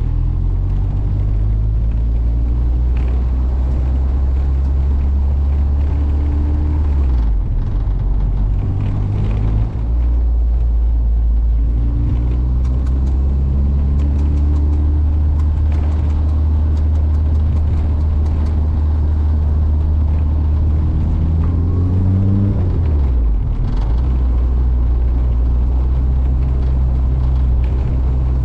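Turbocharged Honda K24 four-cylinder engine in an EG Civic hatchback running. Its pitch dips briefly about a quarter of the way in, and near three quarters through it climbs and then drops sharply.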